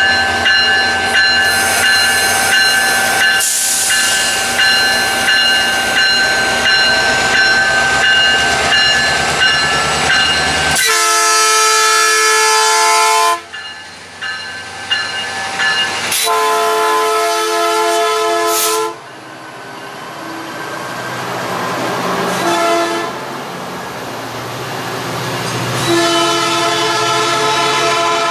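Diesel passenger locomotive, a Metrolink MP36PH-3C, pulling out with its bell ringing in steady regular strokes. The bell is followed by horn blasts: long, long, short, then long, the standard grade-crossing warning. Between the blasts the engine can be heard throttling up as the train pulls away.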